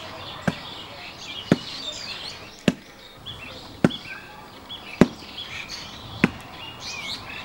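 Six sharp knocks at an even pace of about one a second, like steady chopping or pounding, with small birds chirping between them.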